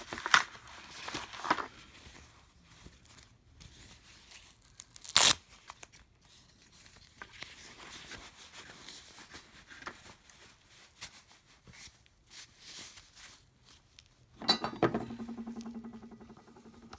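Gloves and their packaging being handled and torn open: rustling, crinkling and small clicks, with a sharp snap about five seconds in. A buzzing stretch with a steady pitch follows near the end.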